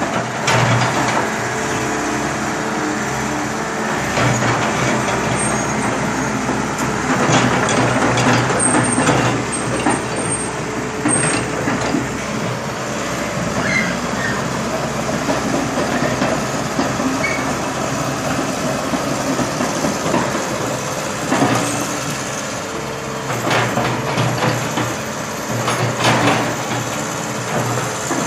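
Heavy diesel engine of a backhoe running steadily, with scattered clanks and knocks from the machine at work.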